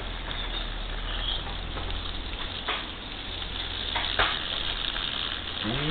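Water spraying and spattering from leak holes in a rusty corrugated-steel rainwater tank under pressure: a steady hiss, with a couple of sharp knocks.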